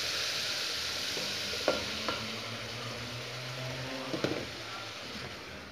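Chopped onion and garlic sizzling in melted butter in a saucepan, the sizzle slowly dying down as wheat flour is tipped in on top of the fat. A wooden spoon clicks against the pan a few times.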